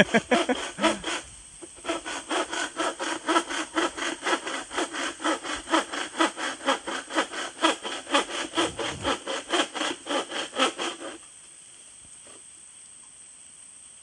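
Hand saw cutting through a bamboo culm in quick, even back-and-forth strokes, roughly three a second. It stops suddenly about eleven seconds in.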